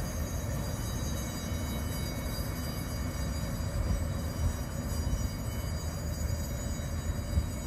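Pilot boat's engine giving a steady low rumble as the boat motors past.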